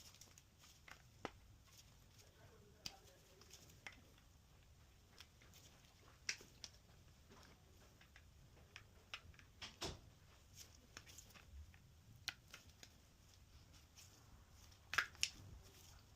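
Irregular light clicks and taps over a quiet room background, with a louder double click near the end.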